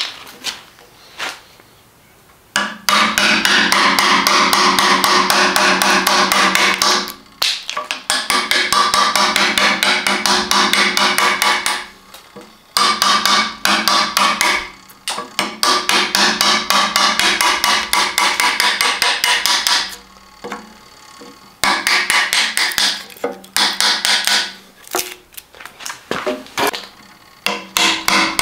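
Wood chisel being struck in rapid, even blows, cutting into a hackberry bow stave clamped in a steel vise. The blows come in runs of several seconds broken by short pauses.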